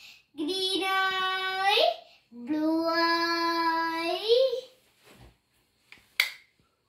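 A child singing two long held vowel notes, each sliding upward at its end, followed by a short sharp click about six seconds in.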